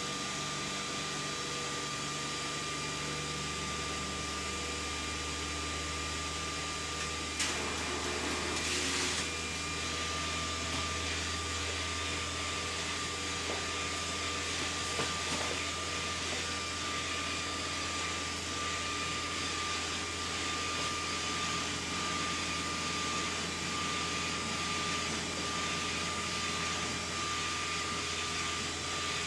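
SK UV6145 UV flatbed inkjet printer running: a steady machine hum with a thin steady whine, a brief click about seven seconds in and a short hiss soon after.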